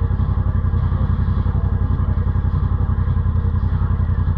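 Yamaha Wolverine RMAX side-by-side's engine running at a steady speed while riding, with a fast, even pulse.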